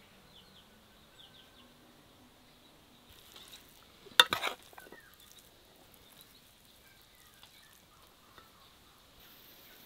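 A spoon stirring a moist shredded-chicken and vegetable filling in an enamel bowl. About four seconds in, the spoon gives a brief, loud scrape and clatter against the bowl.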